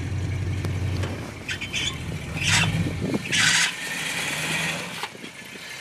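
Chevy K10 pickup's engine with aftermarket exhaust running at low revs as the truck edges forward in snow. There are a few short rushing bursts in the middle, and the engine note drops away after about three and a half seconds.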